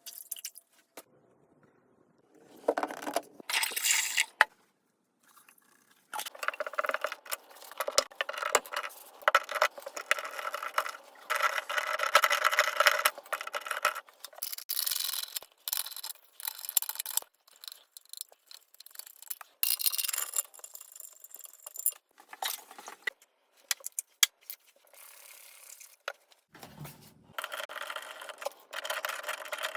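Hands-on toilet replacement work: scraping, rubbing and small clinks of tools and parts, in irregular bursts broken by short pauses.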